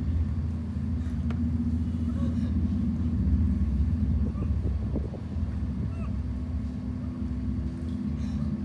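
A steady low rumble, with a faint hum over it.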